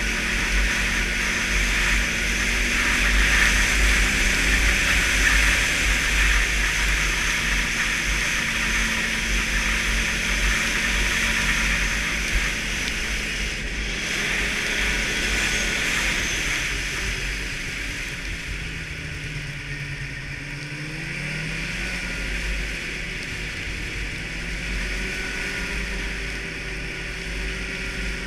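Snowmobile engine running under way, with a steady rushing hiss of wind and track noise. About two-thirds of the way through the engine pitch falls as the sled slows, then climbs again as it speeds back up.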